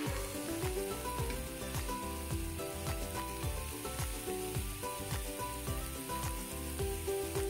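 Milk-based mushroom sauce sizzling in a nonstick frying pan as it is stirred with a wooden spoon, with light scraping clicks from the spoon. Background music with a steady beat plays throughout.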